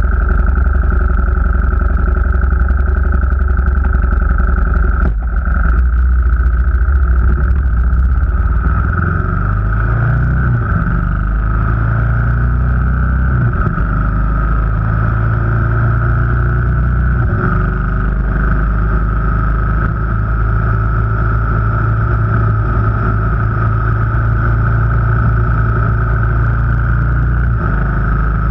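A vehicle engine running steadily under way on the road, its pitch shifting between about nine and fourteen seconds in as speed or gear changes, with a single short knock about five seconds in.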